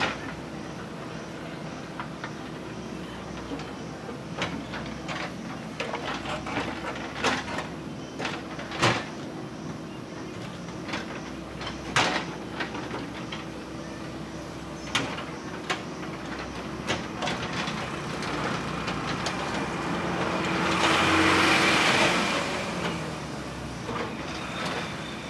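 JCB 3DX backhoe loader's diesel engine running steadily while it digs, with scattered sharp knocks and clanks from the working bucket and arm. About three-quarters of the way through, a loud hiss swells and fades over a few seconds.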